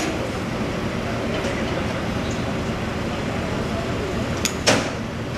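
Truck engine running steadily. About four and a half seconds in comes a sharp click, then a louder knock.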